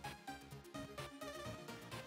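Background music with a steady beat and held notes.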